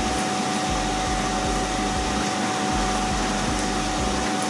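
Steady machine whooshing with a constant hum, unchanging throughout.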